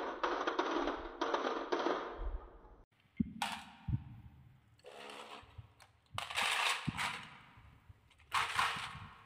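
Glass marbles rolling down a wavy wooden track and dropping into a toy truck's bed full of marbles, a dense rapid clatter that fades out after about two and a half seconds. After a break come a few knocks and short rattles as the marble-laden toy truck is pushed by hand.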